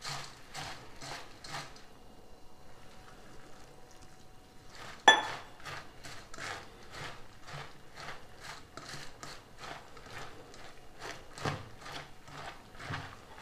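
A hand mixing and squeezing wet kheel (popped paddy) in a stainless steel bowl to moisten it: a rhythmic rustling crunch of about two to three strokes a second, fainter for a stretch near the start. About five seconds in, a single sharp metallic clink rings out against the steel bowl, the loudest sound.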